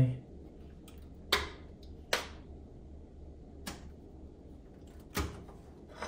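Cable plugs being pulled from the rear jacks of an Onkyo TX-NR509 AV receiver while the unit is handled: four short sharp clicks and knocks spread over several seconds.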